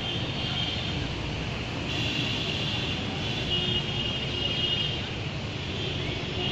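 Steady road-traffic rumble and hiss, with a high thin whine that comes and goes several times.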